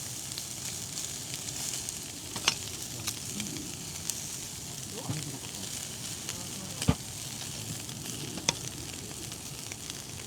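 Food sizzling in a pan: a steady high hiss of frying with a few sharp pops and crackles.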